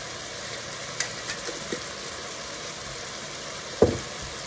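Diced carrots and onion sizzling steadily in a hot enameled cast-iron pot, with a few light clicks about a second in and one sharp knock near the end.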